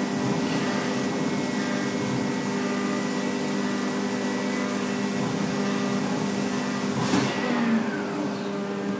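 Haas DT-1 CNC machine running while it machines 6061 aluminium: a steady hum with several held tones under a hiss of coolant. About seven seconds in there is a brief louder rattle and a falling whine, and the high hiss then dies down.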